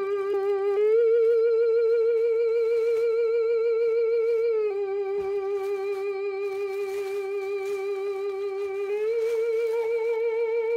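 Animated Halloween Motionette figure's built-in electronic sound: a wavering, theremin-like tone with steady vibrato that steps up in pitch about a second in, drops back near the middle, and steps up again near the end.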